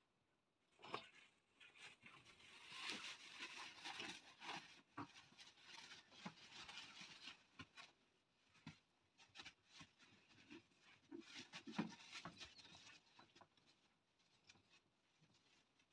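Faint scuffling and rustling of puppies playing and mouthing plush toys on mats and puppy pads, with scattered soft taps and clicks.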